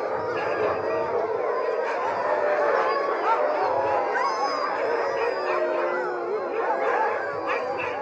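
A chorus of many sled huskies howling together, their long rising and falling howls overlapping one another without a break.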